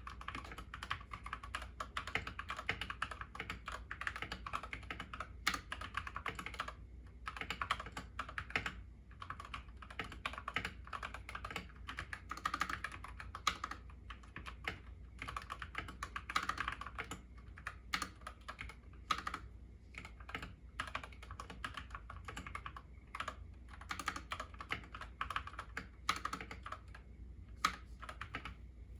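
Fast continuous typing on a YUNZII KC68 mechanical keyboard with lubed Gateron Yellow linear switches and XDA keycaps: dense runs of keystrokes broken by short pauses.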